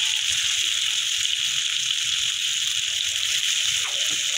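Sliced potatoes sizzling in hot oil in a kadai, a steady frying hiss.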